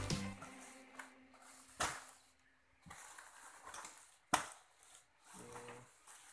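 Plastic-bagged karate uniforms being handled and restacked: plastic wrap crinkling, with a few sharp knocks, the loudest a little past four seconds in. Background music cuts off just as it begins.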